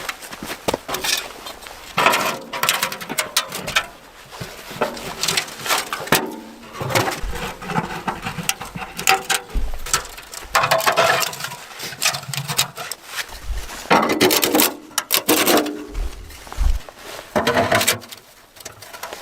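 Irregular crunching, rustling and knocking of hands-on work, with no steady rhythm.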